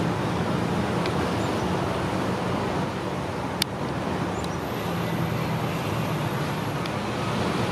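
Steady rumble of road traffic, with a single sharp click about three and a half seconds in.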